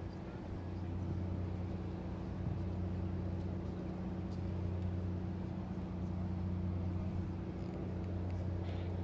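A moored fishing ship's engine running steadily, a low even hum.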